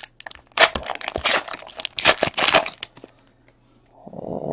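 Foil wrapper of a baseball card pack crinkling and tearing open by hand, in several quick crackling bursts over the first few seconds, then a softer rustle near the end.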